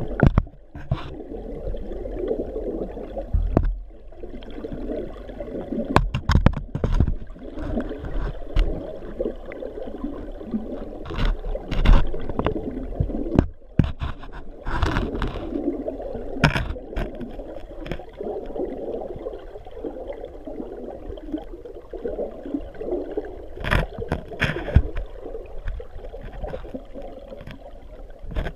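Muffled, steady rush and gurgle of water flowing through a fish-ladder pool, picked up underwater through a GoPro's waterproof housing. A dozen or so sharp knocks and clicks are scattered through it.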